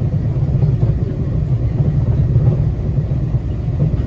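Steady low rumble of a Taiwan Railway Tze-Chiang express train running, heard from inside the passenger car.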